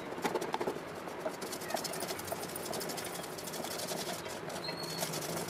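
Wooden spatula stirring and scraping in a heavy-bottomed metal pot as jaggery dissolves in water, with a fine crackle of the syrup starting to bubble.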